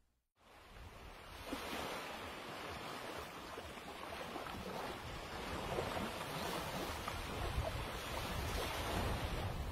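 Sea surf washing on the shore, with wind on the microphone: a steady rushing noise that comes in about a second in after a brief silence.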